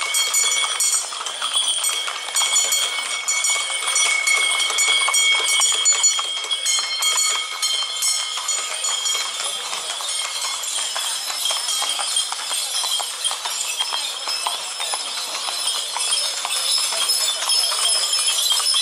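Horses' hooves clip-clopping on a paved street as ridden horses and horse-drawn carriages pass one after another, over a background of people chatting.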